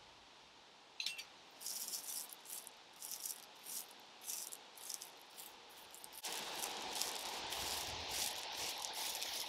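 Hands raking and smoothing loose crushed gravel, a run of short uneven rattling scrapes of stones shifting against each other. About six seconds in a steady hiss comes in and stays under the scraping.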